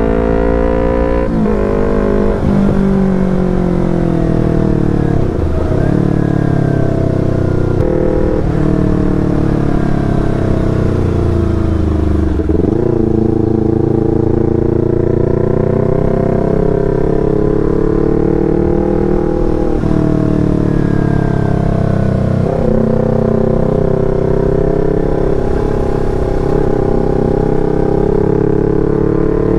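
Yamaha R25's parallel-twin engine running through a Proliner TR1R short aftermarket exhaust while riding, revving and pulling through the gears. The exhaust note dips sharply several times at gear changes and then climbs again.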